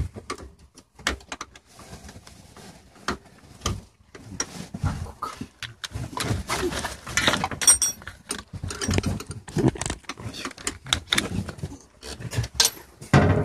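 Irregular metallic clinks, knocks and rattles of hand tools and parts as a Messerschmitt microcar's transmission is being unbolted to remove the shaft.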